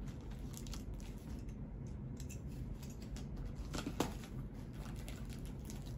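Packaging crinkling and rustling in the hands as it is opened, a string of small crackles with a sharper one about four seconds in.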